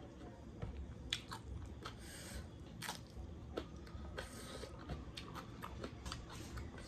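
Close-miked chewing and biting, with sharp crisp crunches from bites of a raw cucumber slice and wet mouth clicks between them.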